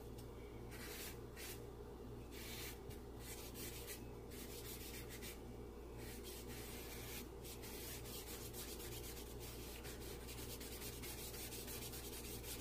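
Charcoal being worked into drawing paper with a shading tool: rapid, scratchy rubbing strokes with a few short pauses, over a steady low hum.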